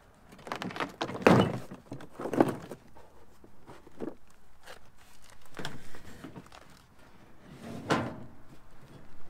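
Hard plastic tool case knocking and thudding as it is lifted and shoved into a truck cab: a string of separate knocks, loudest about a second in and again near the end.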